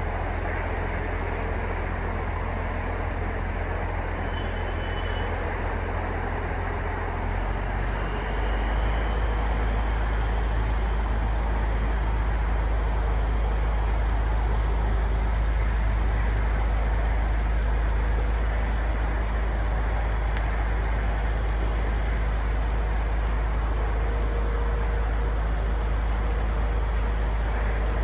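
Crane engine running, a steady low rumble that grows louder about eight seconds in.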